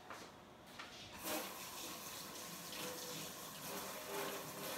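Kitchen sink tap turned on about a second in and running steadily as hands are washed under it.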